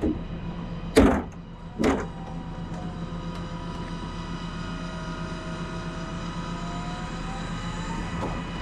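Trash-can cleaning truck's engine and equipment running steadily, with two loud knocks about one and two seconds in as a plastic wheeled bin is set on the truck's lift arms. After that a faint whine slowly falls and then rises in pitch.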